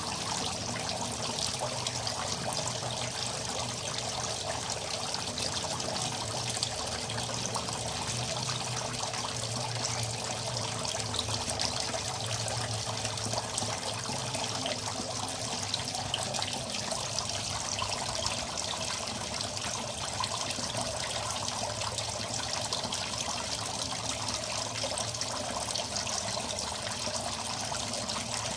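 Water trickling and splashing steadily into a small koi pond from a pump-fed overhead filter, an even, unbroken patter. A faint steady hum sits under it and fades out about halfway through.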